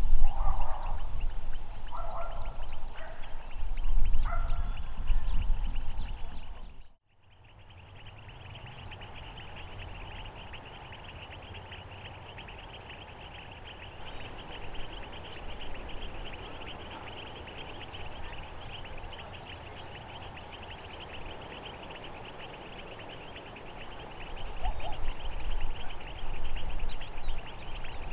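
Lagoon ambience: wind rumbling on the microphone with a few short animal calls, then a sudden brief gap, after which a steady, dense chirring chorus of small wetland creatures runs on. Wind rumble picks up again near the end.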